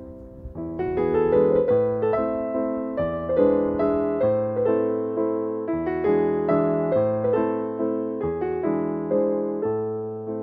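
Background piano music: gentle notes struck one after another, each fading away, with low bass notes beneath.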